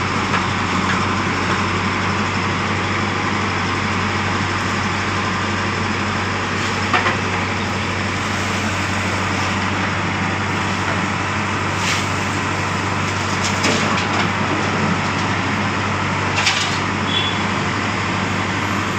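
JCB 3DX backhoe loader's diesel engine running steadily while it digs and loads soil, with a few short knocks.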